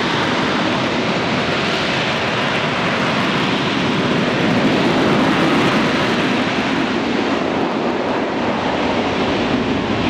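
AV-8B Harrier II jump jet hovering, its Rolls-Royce Pegasus vectored-thrust turbofan making a steady, loud rushing jet noise that swells slightly about halfway through.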